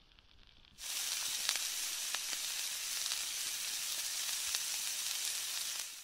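Meat sizzling over a campfire: a loud, even sizzle with scattered sharp pops that starts suddenly about a second in and cuts off just before the end.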